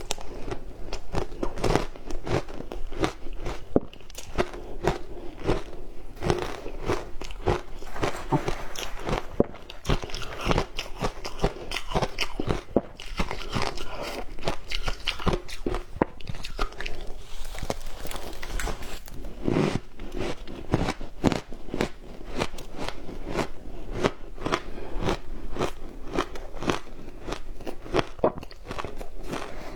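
Frozen matcha ice being bitten and chewed: a continuous run of sharp, cracking crunches, several a second.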